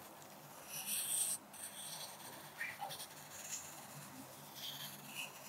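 Pencil scratching on paper as a calligraphy capital G is written in slow strokes, with a louder stroke about a second in.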